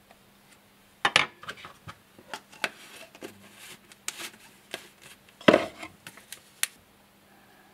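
A run of clicks, knocks and light scrapes as a palette knife and plastic acrylic paint jars are handled on a glass palette and wooden desk. The two loudest knocks come about a second in and about five and a half seconds in.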